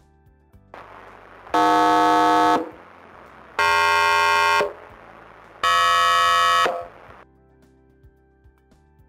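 Network cabinet speaker playing its self-test signal: three loud tones, each about a second long and about two seconds apart, over soft background music.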